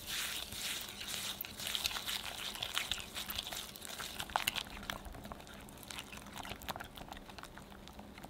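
Balloon whisk with silicone-coated wires beating cream cheese and sugar in a glass bowl: fast wet squishing and scraping through the thick mixture, with many quick clicks as the wires hit the glass.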